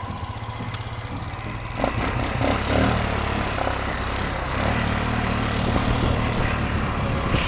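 Quad bike (ATV) engine running steadily at low speed as it is ridden through a grassy field, picking up a little about two seconds in, with a steady hiss over it.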